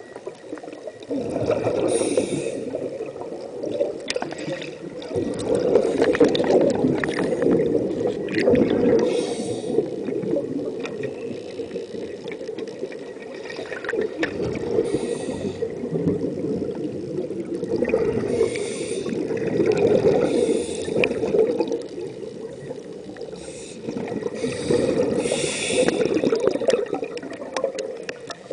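Underwater sound picked up by a camera in its housing: muffled rushing of water that swells and fades every few seconds, with short bursts of hiss now and then.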